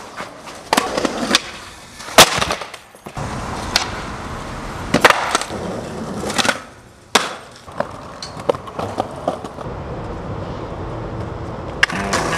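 Skateboard on concrete and pavement: wheels rolling, broken by a dozen sharp clacks of the board's tail popping, landings and the deck hitting the ground, the loudest crack about two seconds in.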